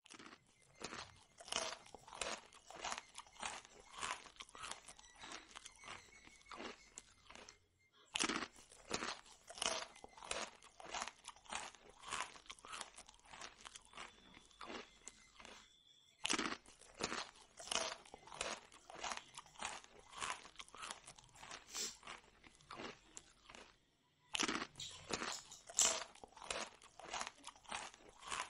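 Close-up chewing and crunching of crisp fried puri, rapid crackling bites and chews, broken by brief silent gaps about every eight seconds.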